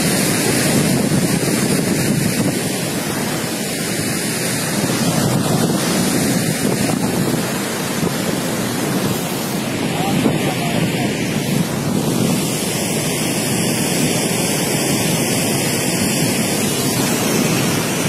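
Goðafoss waterfall's steady rush of falling water, with wind buffeting the microphone.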